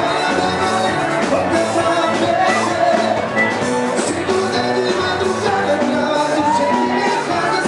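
Background music: a rock or pop song with singing and a steady beat.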